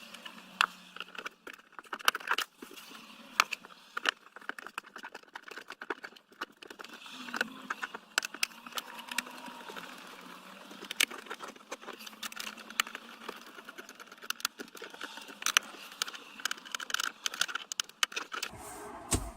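Small screws being driven by hand with a stubby Phillips screwdriver into a plastic dashboard compartment cover: irregular clicks and ticks of the screwdriver, screws and plastic parts being handled. There are a few heavier knocks near the end.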